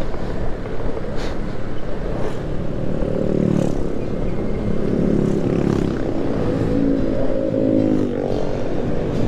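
Honda Vario 125 scooter's single-cylinder engine pulling away and accelerating, its pitch rising steadily from about three seconds in and dropping back near the end, over a low wind rumble on the microphone.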